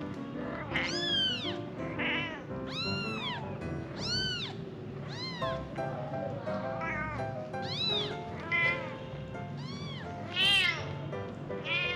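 Young kittens mewing over and over, thin high-pitched calls about once a second, each rising and falling in pitch. Light background music plays underneath.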